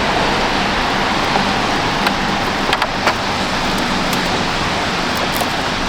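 Steady rushing noise of rain, with a few light clicks about two, three and five seconds in.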